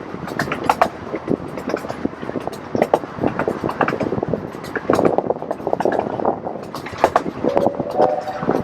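Miniature railroad train running on its track: the wheels and open cars clatter and rattle with many irregular clicks and knocks over a steady rumble. A short steady tone sounds near the end.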